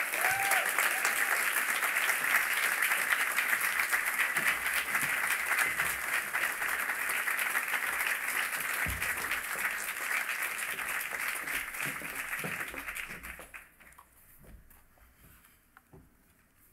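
Audience applauding steadily for about thirteen seconds, then dying away quickly, followed by a few faint clicks.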